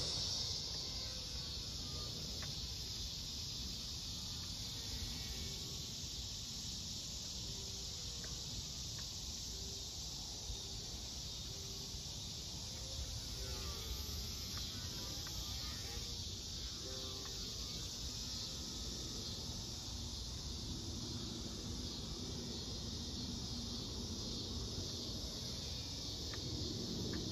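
Steady high-pitched chirring of insects, with a low rumble underneath.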